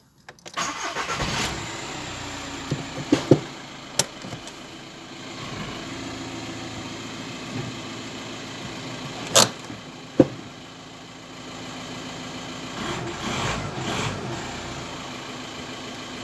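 Volkswagen Golf engine started from inside the cabin: it cranks and catches about half a second in, then settles into a steady idle. A few sharp clicks and knocks come from the cabin.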